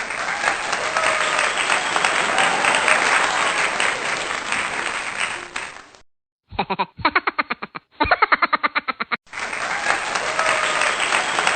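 Applause that cuts off abruptly about six seconds in. After a short gap come about three seconds of rapid, evenly spaced pulses, and then the applause starts again.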